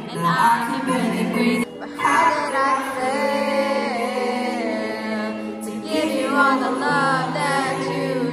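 A song: a solo voice sings long, wavering held notes over steady instrumental chords, with a brief break about two seconds in.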